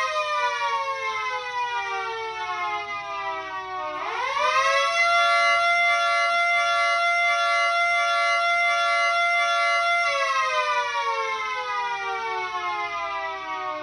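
Miniature model of a Federal Signal 2T22A dual-tone civil defense siren sounding a wail cycle. Its pitch slides down for the first few seconds, winds quickly back up about four seconds in, holds a steady tone until about ten seconds in, then winds slowly down.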